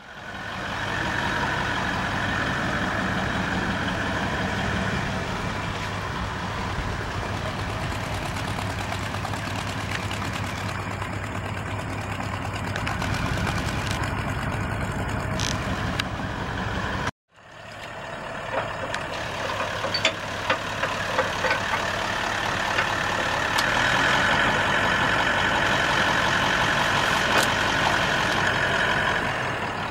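Toyota four-wheel drive's engine running hard as it tries to drive through deep mud, with wheelspin throwing mud and water. The sound drops out for a moment about halfway through, then resumes and gets louder near the end, with scattered sharp ticks.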